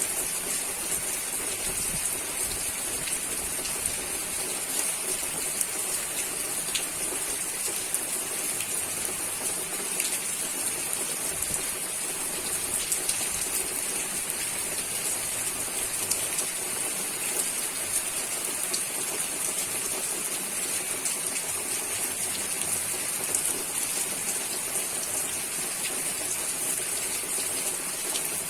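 Steady rain falling, an even hiss with scattered drop ticks throughout.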